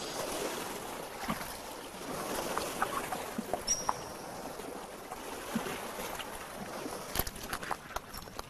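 Shallow stream water lapping and trickling among rocks, with scattered small splashes and drips.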